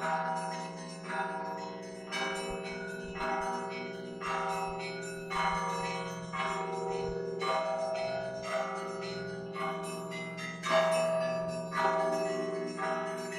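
Russian Orthodox monastery belfry bells ringing in a peal. Smaller bells are struck about once or twice a second over the steady hum of a large bell ringing on beneath them.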